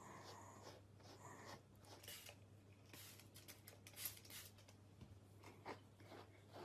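Faint, irregular scratchy strokes of a pet brush drawn through a corgi's coat, over a low steady hum.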